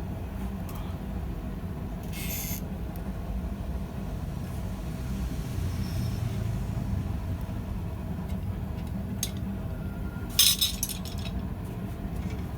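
Two short metallic clinks of steel and tools, about two seconds in and again near the end, over a steady low rumble; no hammering on the anvil.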